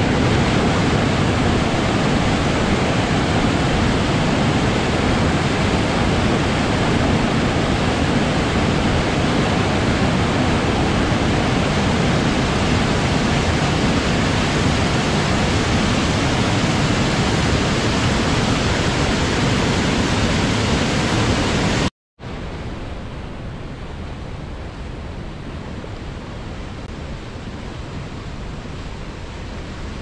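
A small waterfall rushing over boulders into a pool, a steady loud rush of water. About 22 seconds in it cuts out for an instant and gives way to the quieter, steady rush of a river running over rapids.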